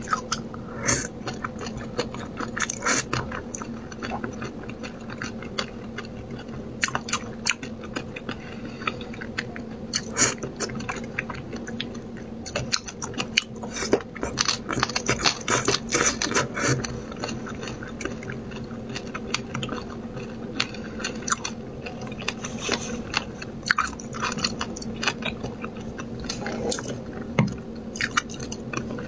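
Close-miked wet chewing, slurping and lip-smacking of spicy braised fish, with many short irregular clicks and some crunching. A low steady hum runs underneath.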